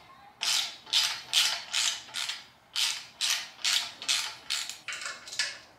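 Ratchet wrench clicking in quick back-and-forth strokes, about two a second, as exhaust manifold bolts are tightened.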